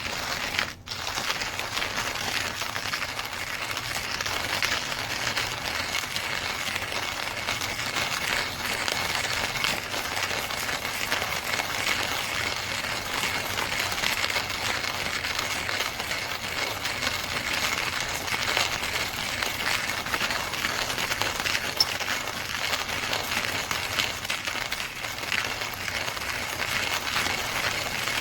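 KitchenAid burr coffee grinder running and grinding beans, a steady, continuous grinding noise with a brief break about a second in.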